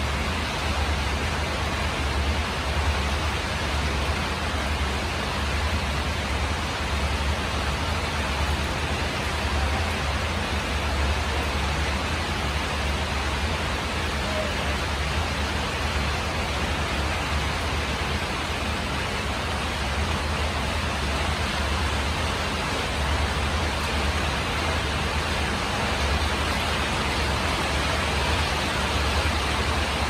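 Steady rain on a tin roof: an even hiss with a low rumble underneath that swells and fades.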